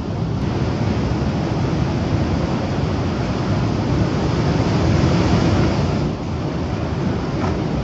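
Large ocean waves breaking and crashing in heavy shorebreak surf: a continuous rushing noise of white water that swells to its loudest about five seconds in, then dips briefly.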